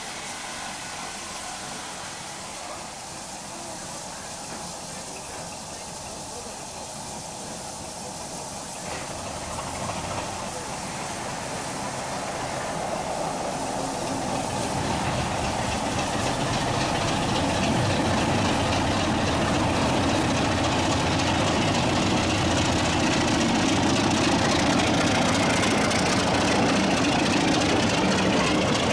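Class 33 diesel locomotive's Sulzer eight-cylinder engine running, growing steadily louder from about eight seconds in, then steady and loud for the last ten seconds.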